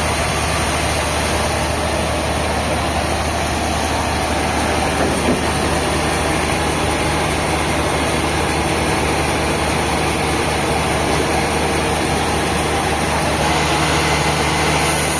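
Sawmill machinery running steadily: a heavy motor's low, even hum under a dense, continuous mechanical noise.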